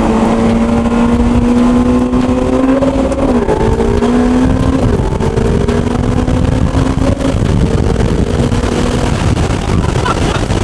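Ferrari 488 Pista's twin-turbo V8 through a Novitec exhaust, pulling steadily with its pitch climbing slowly, over a heavy low rumble. The note dips briefly about three and a half seconds in, then picks up again.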